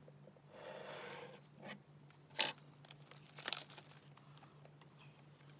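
Scissors cutting the seal on a cardboard Apple Pencil box and the seal tearing away, a rasping tear for about a second near the start. This is followed by one sharp click, the loudest sound, and a few lighter knocks as the box is handled.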